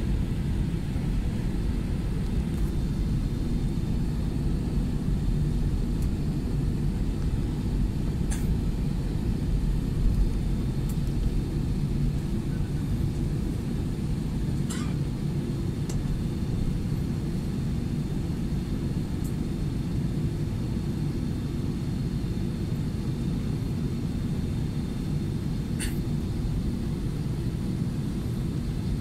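Airbus A320 cabin noise while taxiing: the engines and cabin air make a steady low rumble, with a faint steady high whine over it.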